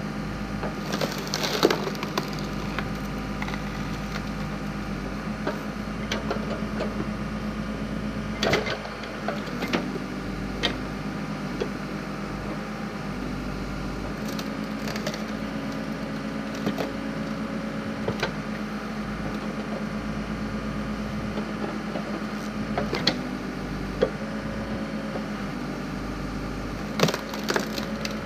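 Wood splitting with sharp cracks and splintering as a backhoe-mounted log splitter forces through logs, several times, over the backhoe's engine running steadily.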